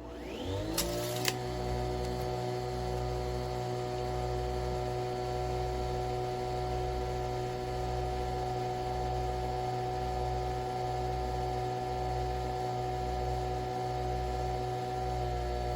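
Nespresso Vertuo Pop+ coffee machine brewing: its motor spins up in a rising whine in the first second, with two sharp clicks, then runs at a steady whine over a low, evenly pulsing hum.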